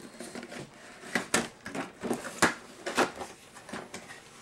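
Cardboard toy box being opened by hand: the packaging rustles, with irregular sharp clicks and snaps as the flaps are pulled.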